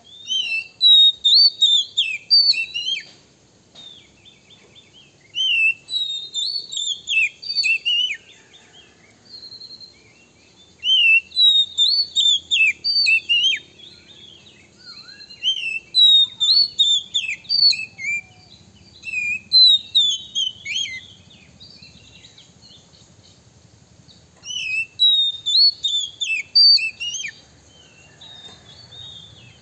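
Male Oriental magpie-robin singing in five bouts of rapid, varied whistled notes that flick up and down in pitch, with pauses of a few seconds between bouts. It is the male's loud territorial song, the kind that provokes rival males.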